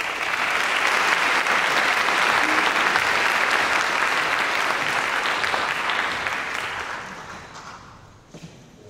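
Audience applauding steadily, then dying away over the last couple of seconds.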